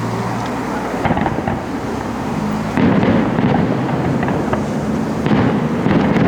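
Fireworks display in full swing: a dense run of crackling pops and bangs, growing louder and thicker about three seconds in.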